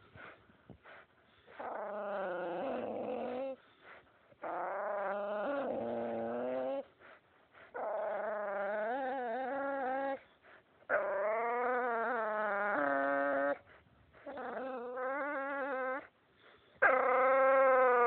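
A dog vocalising during rope tug-of-war play: six long, wavering whining moans of two to three seconds each, with short pauses between, the last one loudest.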